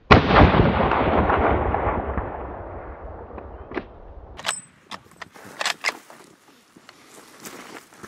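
A single .375 H&H big-game rifle shot, its boom rolling away and dying over about four seconds. A few faint sharp clicks and rustles follow near the end.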